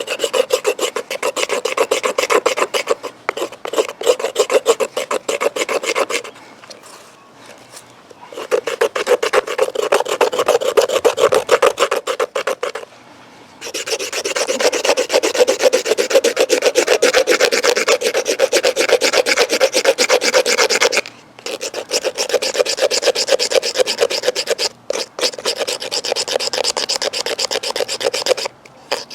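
Small saw blade of a Victorinox pocket multitool sawing through a wooden log, a fast rasping of teeth on wood in four long bouts with brief pauses between them.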